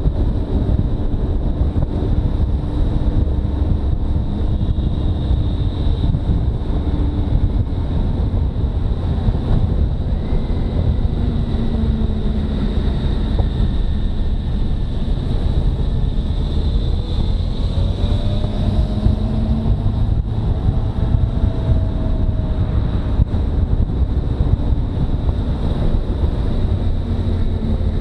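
Motorcycle riding at moderate road speed: heavy wind rush on the microphone over a steady engine drone, with a fainter engine note that rises and falls in pitch.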